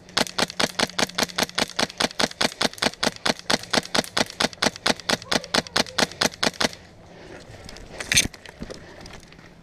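Airsoft gun firing a steady string of shots, about five a second, for nearly seven seconds, then one louder crack about eight seconds in.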